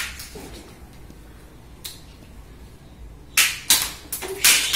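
Toy gun shot at plastic action figures: a quick run of three sharp clacks within about a second, starting about three and a half seconds in, as a figure is knocked down and clatters off the table.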